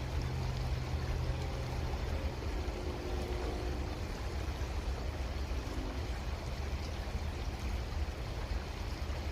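Creek water running, a steady rushing with a strong low rumble underneath.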